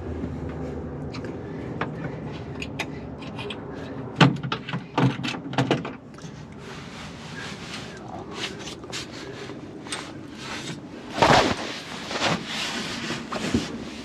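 Knocks and clanks of a bar in a pickup's bed being handled and shifted into a new position, in clusters about four seconds in and again about eleven seconds in, over a steady low hum that fades out about halfway through.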